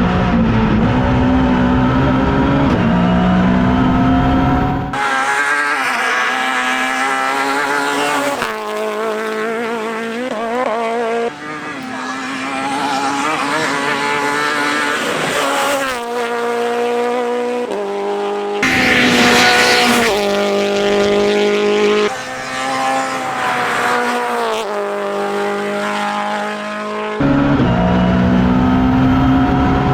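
A Toyota GT86 rally car's FA20 flat-four engine running hard on a stage, its pitch rising and falling through gear changes. The sound switches abruptly every few seconds between a dense low rumble and clearer, higher engine notes.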